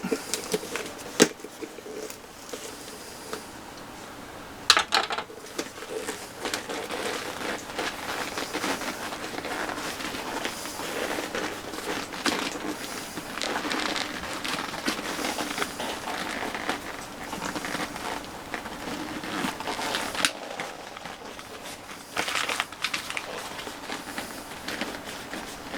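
Crinkling, rustling handling noise with scattered sharp clicks: an HGU-55/P flight helmet and its straps being handled and fitted.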